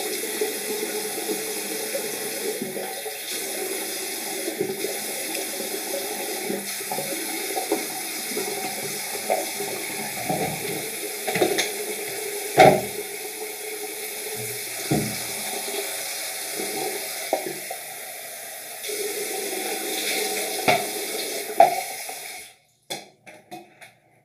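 A tap runs into a bathroom sink with irregular splashes and small knocks as someone rinses their face at it. The running water cuts off about two seconds before the end.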